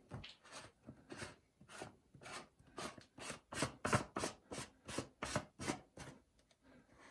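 Plastic water-filter housing being screwed onto its head by hand: a series of short scraping rubs, about two a second, as the threads are turned. The rubs grow louder through the middle and fade near the end.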